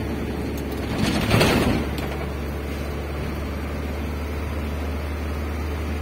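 Steady engine and road noise heard from inside a moving vehicle, with a brief loud rush of noise about a second in.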